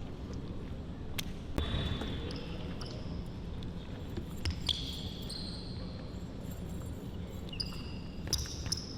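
A basketball bouncing on a gym floor, a few separate thuds, with several short high sneaker squeaks in between.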